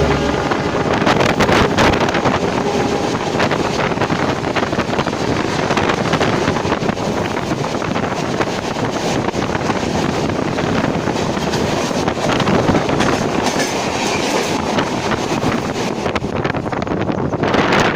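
Bangalore Rajdhani Express coaches rushing past close by, with a dense, rapid clatter of wheels over the rail joints. There is no horn; the sound of the passing coaches thins briefly near the end.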